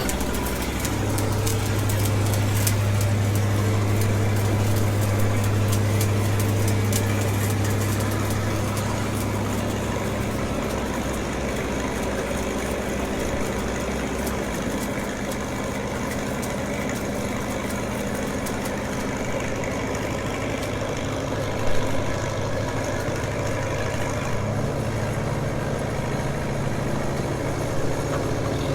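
Stick-welding arc crackling as a 7018 electrode lays a cap pass, over the steady running of an engine-driven welding machine. The engine's note shifts twice early on, and the crackle thins out in the second half.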